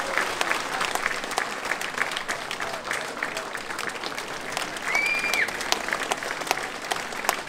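Audience applauding: a dense, steady patter of many hands clapping. About five seconds in, a brief high steady tone cuts through for about half a second.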